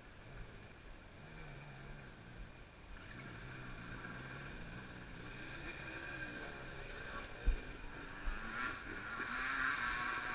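Dirt bike engines revving up and down in the distance, getting steadily louder as they approach. There is one sharp knock about seven seconds in.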